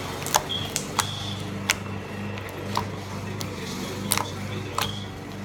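A steady low electrical hum with a handful of short, sharp clicks scattered through it.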